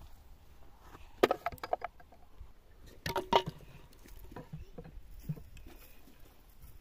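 Two quick bunches of short knocks and taps, one about a second in and a louder one about three seconds in, over faint background noise.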